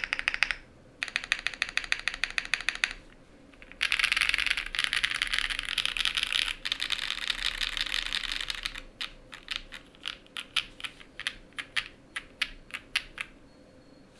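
Sun68 mechanical keyboard with a polycarbonate plate, relubed Kailh Ashes switches and GMK keycaps being typed on: two quick runs of keystrokes, then a dense, fast flurry about four seconds in, then separate single keypresses at a slower pace for the last few seconds.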